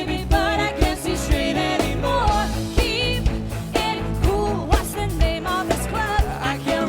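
Live pop-rock band music with a steady drum beat, bass and a wavering lead melody line.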